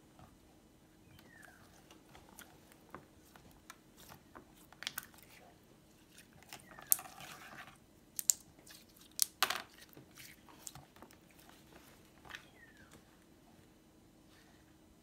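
Clear pink glitter slime being stretched, squeezed and kneaded by hand, giving irregular clicks and pops, the loudest a cluster of sharp pops a little past the middle.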